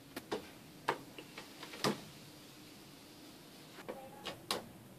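Scattered sharp plastic clicks and taps as a power cord's plug is handled and pushed into a wall outlet. The loudest click comes about two seconds in, and a few more follow near the end.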